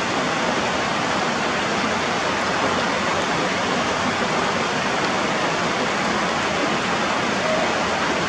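Heavy rain falling steadily: a dense, even hiss that does not change.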